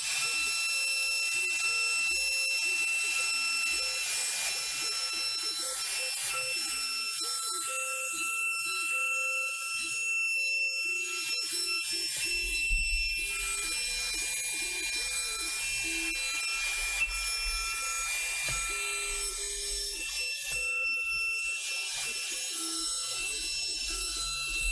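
SmartBench CNC router spindle running and profile-cutting 6mm MDF with an 8mm two-flute up-cut end mill: a steady high whine with overtones, under lower tones that keep shifting in pitch as the gantry moves.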